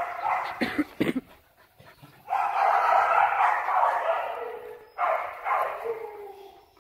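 Young tan dogs making noise while playing: a few short barks about a second in, then longer drawn-out yapping and whining cries.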